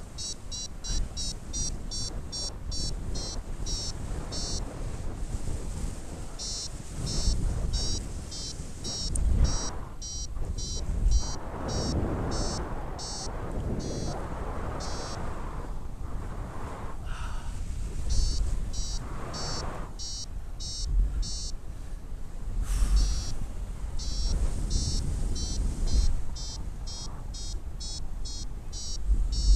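Paragliding variometer beeping in quick runs of short high-pitched beeps, about three or four a second, pausing now and then: the climb tone that sounds while the glider is rising in lift. Wind rumbles on the microphone underneath and swells at times.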